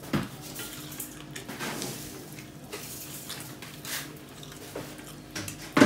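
Fingers mixing rice and curry on a stainless steel plate: soft squishing with faint scattered clicks and scrapes, and one sharper click near the end.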